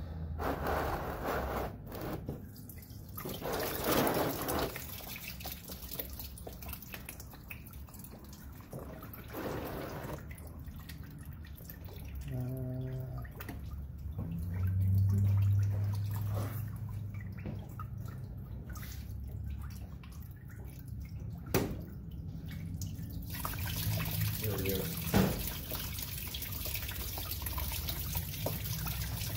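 Engine coolant dripping and trickling out of an engine block drain, with a few sharp clicks of tools. About three quarters of the way through, the flow turns into a steadier, fuller stream.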